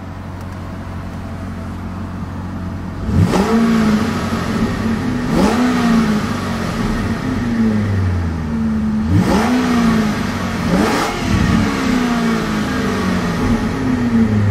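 Supercharged Northstar V8 of a 2009 Cadillac XLR-V, heard from the driver's seat, idling and then revved four times in quick throttle blips. Each blip rises sharply and falls back toward idle: a very free-revving engine.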